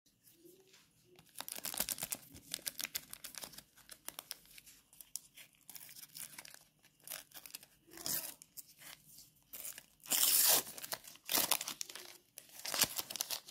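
A Panini football-sticker packet being torn open by hand, its wrapper crinkling and tearing in repeated bursts of rustling. The loudest tear comes a little after ten seconds in.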